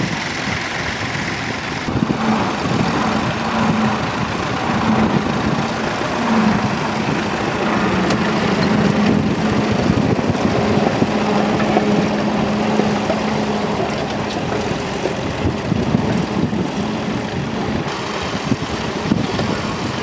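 Vintage Fordson tractor engines running steadily while pulling ploughs, with a steady engine hum clearest through the middle of the stretch.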